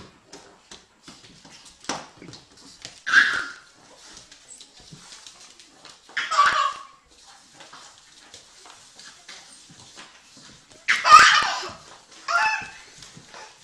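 A pug and a baby at play: four short, loud cries, a mix of a baby's shrieks of laughter and a dog's barks, with small knocks in between.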